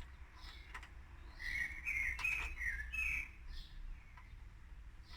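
A bird chirping: a quick run of short notes about a second and a half in, with higher single notes repeating on and off. A few light clicks are heard too.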